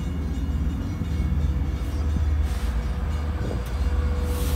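Long Island Rail Road diesel locomotive pulling into the station with a steady low rumble. A steady whine comes in about three and a half seconds in, and there are two short hisses, one near the middle and one near the end.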